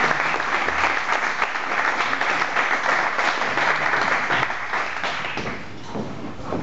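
Audience applauding with many hands clapping, dying away about five seconds in.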